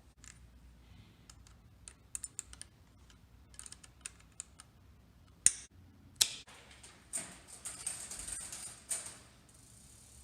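Light clicks and ticks of bicycle parts being worked by hand. About halfway through come two sharp clicks, then a couple of seconds of rattling, whirring mechanical noise near the end.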